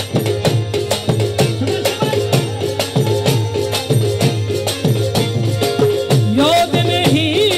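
Live devotional folk-music accompaniment: hand-drum strokes in a fast, even rhythm with low bass notes that bend downward, a shaker rattling along, and a steady held drone beneath. A wavering sung line comes in near the end.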